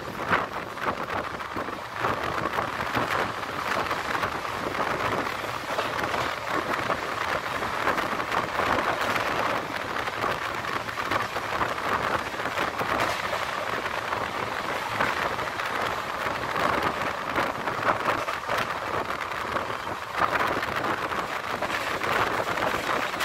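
Steady rushing noise of a passenger train running at speed, heard with the microphone held out in the slipstream beside the coach, so the wind on it blends with the rumble of the wheels on the rails.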